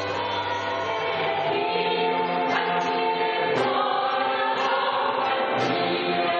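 Early-music ensemble playing medieval music live: held notes over a drone, with singing voices. The low drone drops out about a second and a half in.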